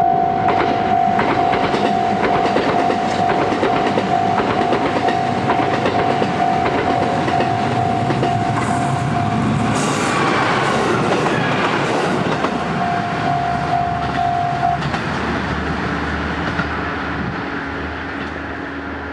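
JR Central KiHa 11 two-car diesel railcar train accelerating through a level crossing: its diesel engines run under the clatter of the wheels over the rail joints. The crossing's warning bell rings rapidly until about halfway through, stops, and sounds again briefly a few seconds later. The train sound slowly fades near the end.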